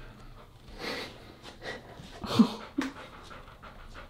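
A goldendoodle panting while being held up in a person's arms, with a couple of louder breaths about one and two and a half seconds in.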